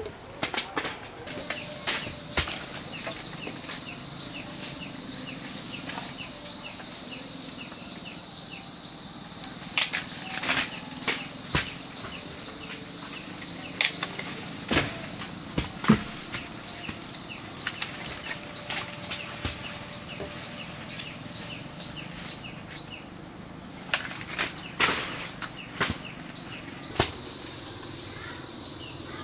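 Steady high insect drone with a quick, repeated chirping call over it, and scattered sharp clicks and knocks of handwork, the loudest about halfway through.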